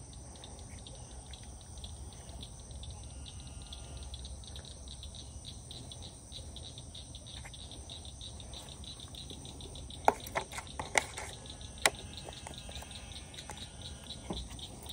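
Crickets chirping in a fast, steady pulsing chorus. A few sharp clicks of handling come about ten seconds in.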